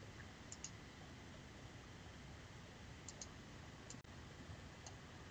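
Faint computer mouse clicks, a few quick pairs and single clicks, over near-silent room tone.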